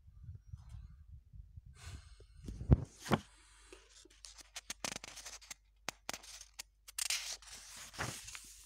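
Paper pages of a comic book being handled and turned: rustling, with two sharp clicks close together a little under three seconds in, and another stretch of rustling near the end.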